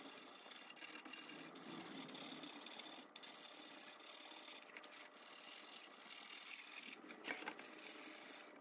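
Sandpaper rubbed by hand over a black-painted wooden frame, a faint steady scratchy hiss, sanding the paint back to a worn finish. One brief louder stroke comes about seven seconds in.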